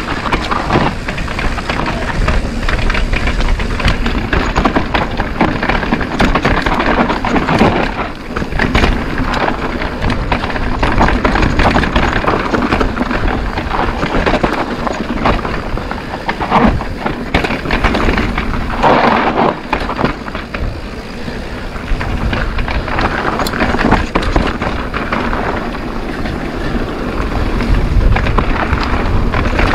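Mountain e-bike riding fast down a dirt singletrack: knobby tyres crunching over dirt and loose gravel, the bike rattling and clattering over bumps, with wind rushing over the microphone.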